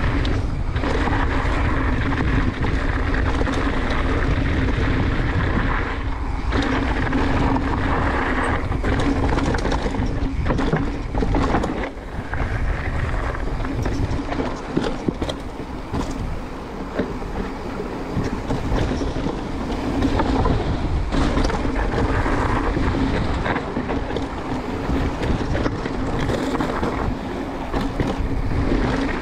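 Wind rushing over the microphone and tyre noise as a Transition Sentinel mountain bike is ridden along a trail, with frequent knocks and rattles from the bike over bumps.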